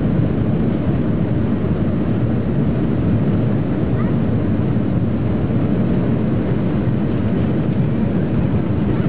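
Airliner taking off, heard from inside the cabin: the steady, loud rumble of the jet engines and airflow at takeoff power.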